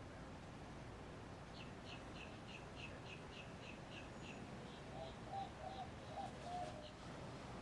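A bird chirping faintly in a quick run of about a dozen short, high notes, roughly three a second, followed by a few lower warbled notes, over a steady low background hum.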